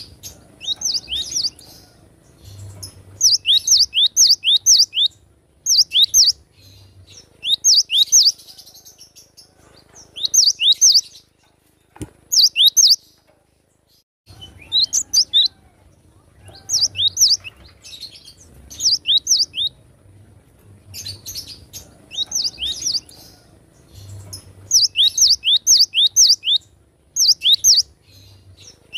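Cinereous tit (gelatik batu) singing: repeated phrases of sharp, high, downward-sweeping whistled notes, three to six in quick succession, coming every second or two. A single click about twelve seconds in.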